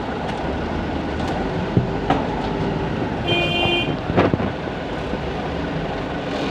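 Heavy construction machinery running steadily, with a few sharp metal clanks and a short tonal beep a little past the middle.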